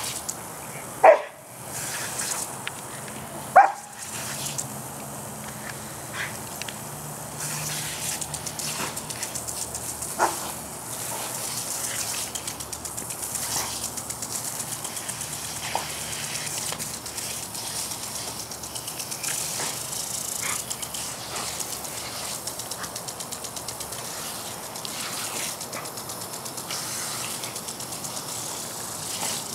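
Australian shepherd barking, two loud sharp barks near the start and a few fainter ones later, as it attacks a lawn sprinkler. Under the barks runs the steady hiss of the sprinkler's spraying water.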